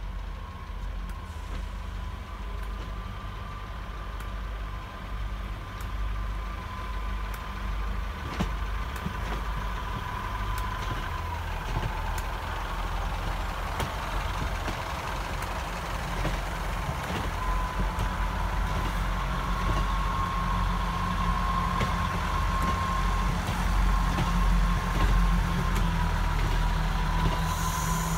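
Class 158 diesel multiple unit running slowly past with a low engine rumble and a steady, slightly wavering whine, growing louder as the train draws nearer.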